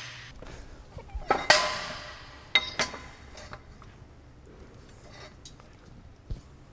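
Steel press blocks clanking and ringing as they are set down and shifted on the steel bed of a hydraulic shop press: a loud ringing clank about a second and a half in, two sharper knocks a second later, then lighter knocks and a dull thump near the end.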